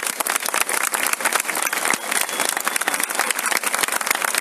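A crowd applauding: many hands clapping densely and evenly.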